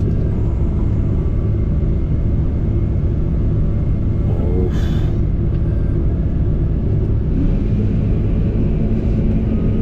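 Combine harvester running at high revs, a steady low engine drone, while it unloads grain into a trailer.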